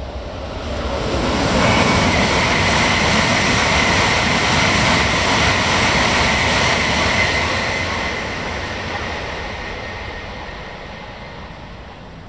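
E7 series Shinkansen passing through the station at speed: a rushing rail and air noise that swells over the first two seconds, holds loud for about six seconds with a steady high whine in it, then fades away.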